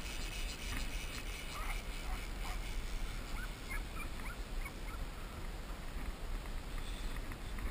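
Wind rumbling on the microphone over open water, with a string of short, high squeaks or chirps through the first half.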